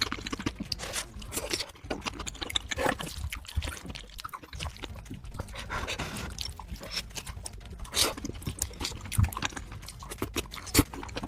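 Sped-up mukbang eating sounds: a quick, irregular run of chewing, smacking and wet mouth clicks close to the microphone.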